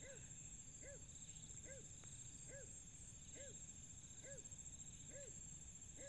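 A short, low, rising-and-falling animal call repeated evenly about once a second, over a steady high insect trill.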